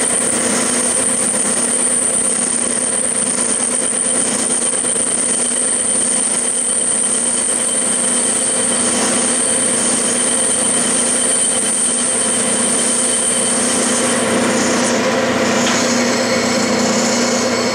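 Clausing metal lathe running steadily at about 700 rpm while a single-point tool takes a slow finishing cut in the V-groove of a pulley, with a steady hum and several even tones; a high steady whine stops about fifteen seconds in.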